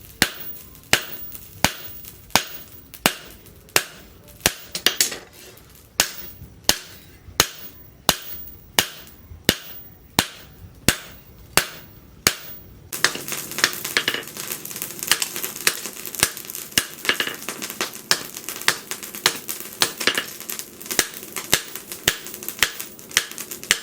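Hand hammer striking hot leaf-spring steel on an anvil in sharp, ringing blows, roughly three every two seconds. About halfway through, the sound changes to a denser run of lighter, quicker taps over a steady hiss.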